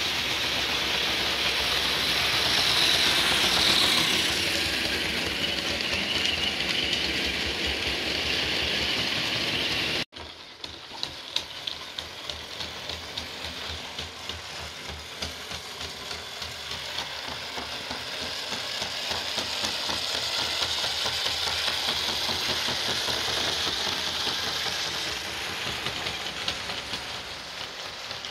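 Model Class 42/43 Warship diesel locomotive running on a model railway: a steady hissing motor whine, then after a break about ten seconds in, wheels clicking over the rail joints with a high motor whine that swells and fades.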